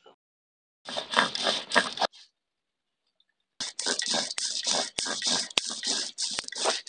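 Rasping scrapes of a cylinder rubbed back and forth over a wire-mesh grater coated in wet white rice paste, in quick repeated strokes. A burst of scraping stops after about a second, there is a pause of about a second and a half, then the strokes resume, several a second, and keep going.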